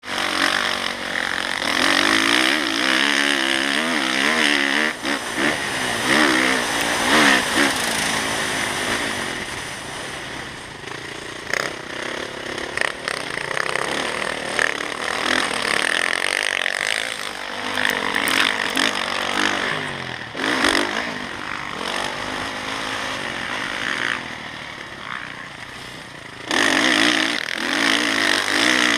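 Dirt bike engine ridden hard, its pitch rising and falling with throttle and gear changes, over wind rush on the bike-mounted camera's microphone. It gets suddenly louder about three seconds before the end.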